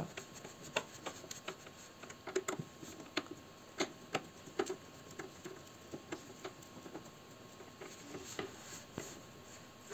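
Small screwdriver driving screws through a refrigerator's steel door-hinge plate: irregular light clicks and ticks of the bit turning in the screw heads, with faint scraping of metal on metal between them.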